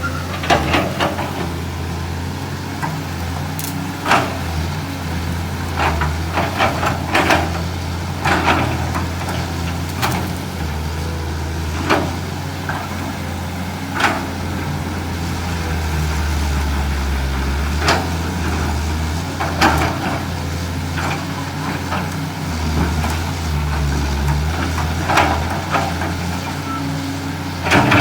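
Caterpillar 320 excavator's diesel engine running steadily, with sharp knocks and cracks every couple of seconds as it prises out eucalyptus stumps.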